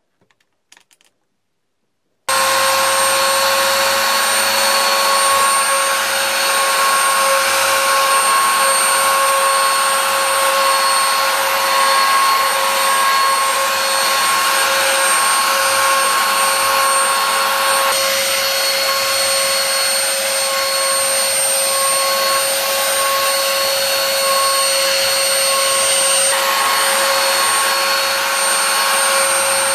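Wood router switched on abruptly about two seconds in, then running steadily at full speed with a high whine while its bit carves into a wooden disc under the pantograph.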